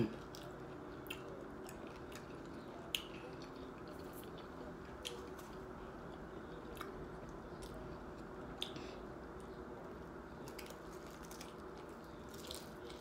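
Close-up chewing of a taco, with scattered sharp crunches and mouth clicks, over a steady low background hiss.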